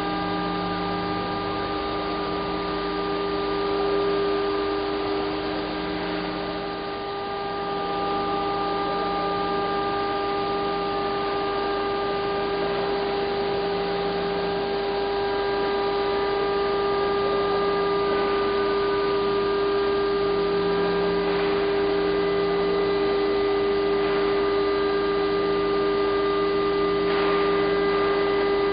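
A steady hum made of several unchanging tones over a low hiss, with one lower tone that drops in and out, and a couple of faint brief noises about eighteen and twenty-seven seconds in.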